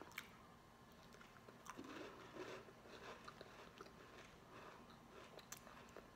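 Faint, irregular crunching and chewing of a small coffee cookie being eaten with the mouth closed.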